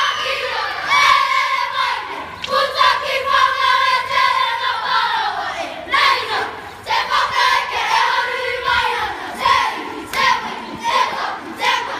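A group of children chanting and singing together in a Māori kapa haka performance, with shouted calls and long downward pitch glides, and a few short sharp slaps in between.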